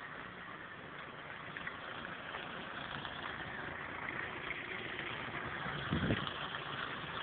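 Small gasoline engine of a walk-behind snowblower running steadily, heard across a snowy street. There is a brief low thump about six seconds in.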